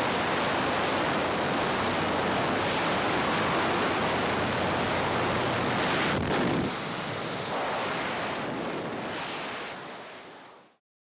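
Steady rush of wind over a helmet camera's microphone at a skydiving plane's open jump door; the noise shifts just after halfway and fades out near the end.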